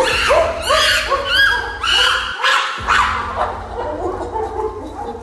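Chimpanzee giving a rapid series of excited, rising-and-falling squealing calls, two or three a second, in greeting as its owner returns. The calls thin out after about three and a half seconds.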